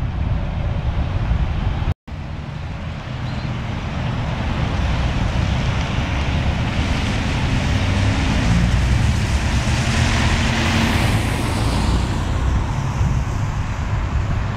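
Heavy low rumble of wind buffeting the microphone, with a motor vehicle passing on the road: its noise swells, peaks and fades over several seconds near the end. The sound cuts out for an instant about two seconds in.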